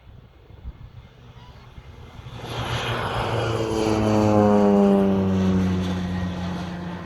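Crop-dusting airplane making a low pass: its engine and propeller grow louder over a couple of seconds, peak about midway, then fade as the pitch drops while it goes by.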